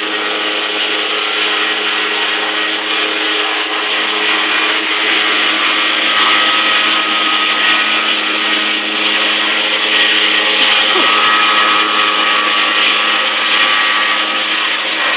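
Gardener's gas-powered handheld garden tool, a small engine running steadily at a constant high speed with a whining hum.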